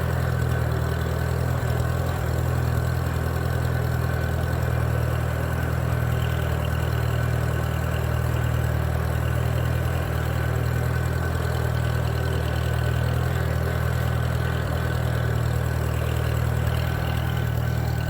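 The engine of a Minneapolis-Moline BF tractor running steadily at an even speed, freshly rebuilt and not sounding bad at all.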